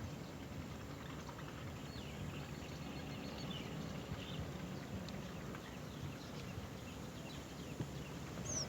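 Faint, scattered bird chirps over a steady low background rumble, with one sharper, falling high call near the end.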